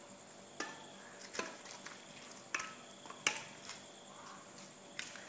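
Badminton rackets striking a shuttlecock in a rally: sharp, short pops at uneven intervals, six in all, the loudest a little past the middle.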